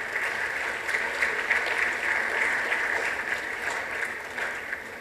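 Audience applauding: a steady patter of many hands clapping that eases off near the end.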